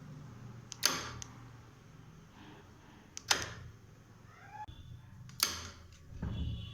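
Electromagnetic door lock clacking three times, about two and a half seconds apart, as its lever is switched by remote and snaps down and springs back.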